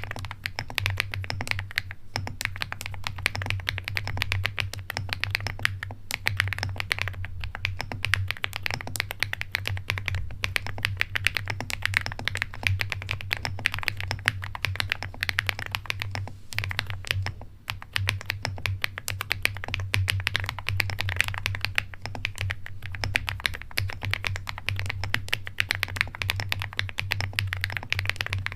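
Continuous fast typing on a foam-filled AhoLLC mechanical keyboard with Keygeek Mirror Lake switches: a dense stream of keystrokes with a short lull a little past halfway. A steady low hum runs underneath.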